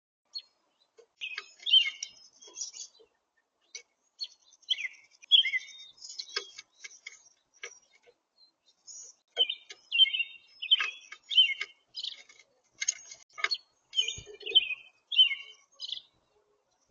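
Small songbirds chirping in quick clusters of short high notes, mixed with sharp ticks and taps.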